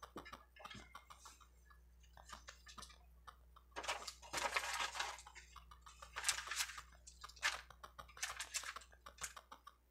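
Paper and plastic packaging crinkling and rustling in several short bursts as hands handle it, with light clicks and taps in between.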